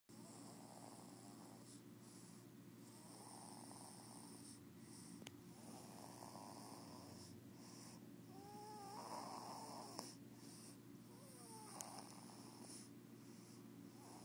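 Soft, rhythmic snoring from a sleeping baby, one breath about every two and a half seconds, with a couple of faint squeaky sounds in the second half.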